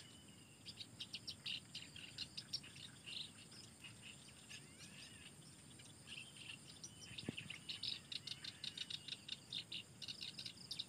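Birds chirping in quick runs of short, high calls, with a steady high-pitched insect drone underneath.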